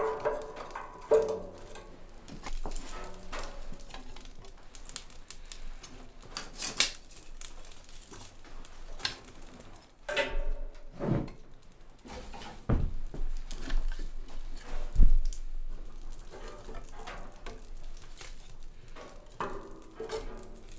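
Kindling sticks being handled and laid into a small cast-iron wood stove on a freshly lit fire: scattered wooden clicks and knocks against the open firebox, several sharper knocks spread through, with small crackles from the burning kindling.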